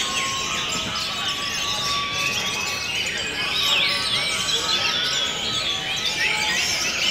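Several orange-headed thrushes singing at once in a songbird contest, a dense run of overlapping whistled and chattering phrases that rise and fall quickly.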